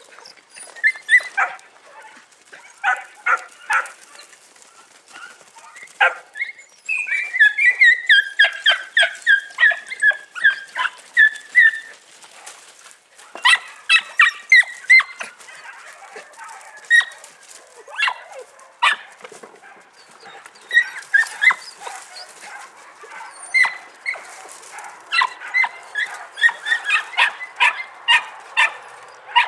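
Three-month-old podenco puppies barking and yelping in quick series of short, high calls, with a long rapid run of yips about a quarter of the way in.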